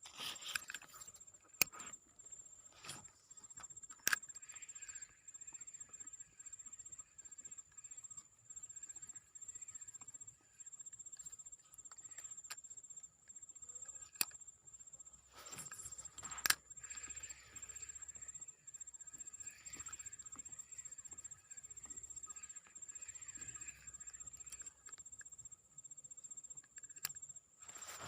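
Faint outdoor ambience: a steady high-pitched whine throughout, a faint wavering chirring, and a few sharp clicks or knocks.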